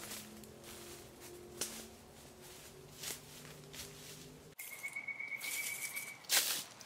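Footsteps crunching through dry leaf litter on a forest floor, faint at first and much louder near the end.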